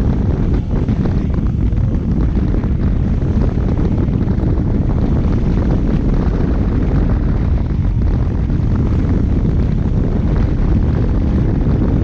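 Steady wind roar on the microphone of a moving Bajaj Pulsar RS 200 motorcycle, with its single-cylinder engine running underneath.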